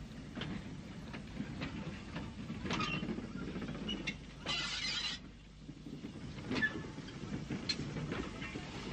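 Two Great Western steam locomotives, a Mogul and a Manor, backing slowly onto their train: a low rumble with scattered clanks and knocks, and a short hiss of steam about four and a half seconds in.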